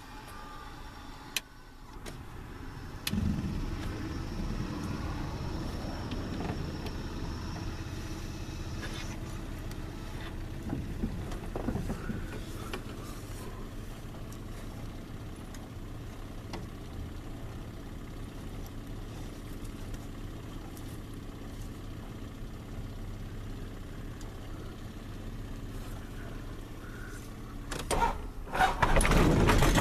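A couple of clicks, then a steady low hum from about three seconds in. Near the end the Rotax 912S four-cylinder boxer engine of an Allegro 2000 ultralight cranks over and catches, running loud and steady on its first start after an overhaul.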